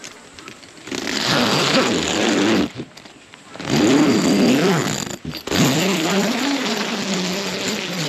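Zipper on the door of an Ergen Lounge Shelter S5 tent being pulled open in three long strokes, starting about a second in, a rasp whose pitch rises and falls with the speed of the pull.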